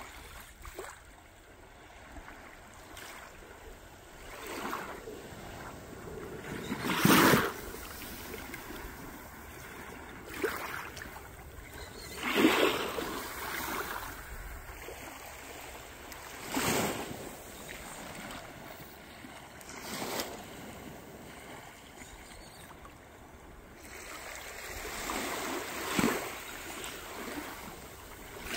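Small waves breaking and washing up on a sandy shore, a rush every four to five seconds over a steady background hiss.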